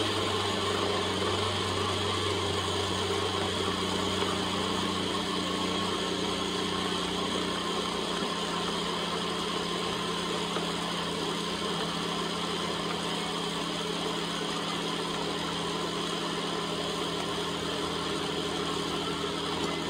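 Countertop blender running steadily with a constant motor hum, chopping pieces of cooked chicken to shred them.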